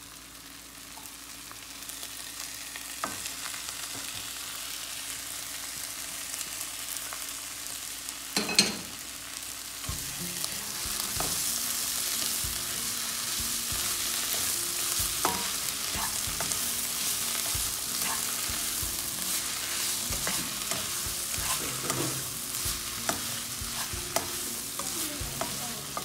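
Sliced onions and chopped tomato sizzling in coconut oil in a non-stick kadai, the hiss building over the first few seconds. One loud clatter comes about a third of the way in, then a spatula stirs and scrapes steadily against the pan.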